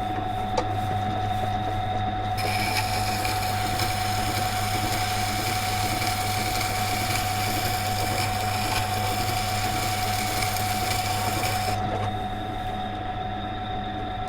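Water-cooled stone wheel grinder running with a steady motor hum. From about two seconds in until near the end, a carbon steel knife blade is held to the turning wet stone, adding a steady grinding hiss as the secondary bevel is ground up toward the tip.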